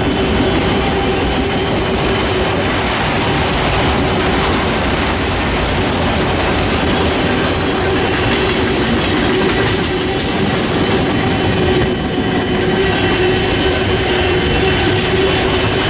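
Freight train cars rolling steadily past, wheels running over the rails with a clickety-clack and a faint steady squeal.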